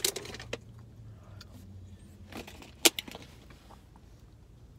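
A few clicks and crackles of a plastic water bottle being picked up and opened, with one sharp, loud click about three seconds in.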